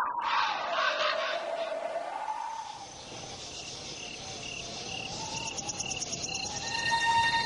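A slowly wavering whistle of wind gives way to cricket-like insect chirps, repeated evenly about twice a second. A fast trill of pulses joins them in the second half.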